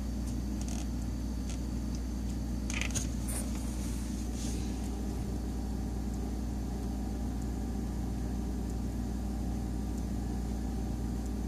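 Steady low hum of a refrigerator running. A few brief, faint rustles of a rag wiping the plastic push-pull water valve come about three and four and a half seconds in.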